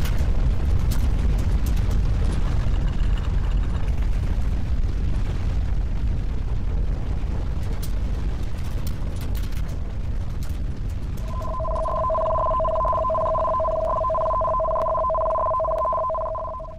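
Deep, continuous rumbling with scattered crackles and rattles. About eleven seconds in, a two-tone warbling ring, like a telephone bell or alert tone, joins it for about five seconds and then cuts off.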